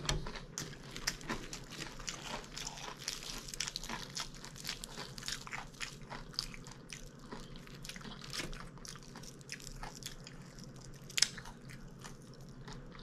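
A person chewing a mouthful of food close to the microphone, with many small crunches and wet mouth clicks, one louder near the end.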